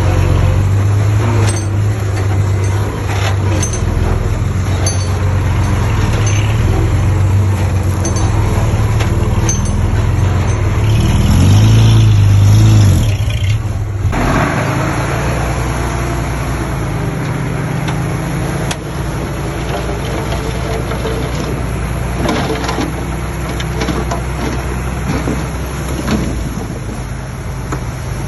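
Engines of earthmoving machines working, a steady low diesel drone. It swells louder about twelve seconds in, then changes abruptly a moment later.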